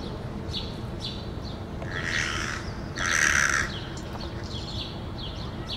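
Hooded crow cawing twice, about two seconds in and again a second later, the second caw louder and hoarse. A small bird chirps steadily underneath in short falling notes, about two a second.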